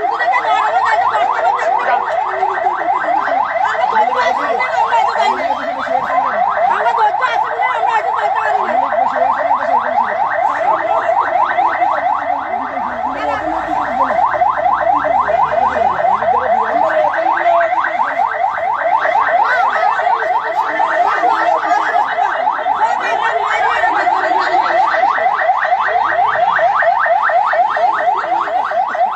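Electronic alarm tone warbling rapidly and continuously at a steady loud level, with faint voices underneath.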